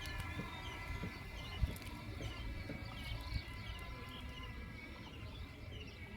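Small birds chirping, short quick calls repeated over and over, above a steady faint tone and a low rumble.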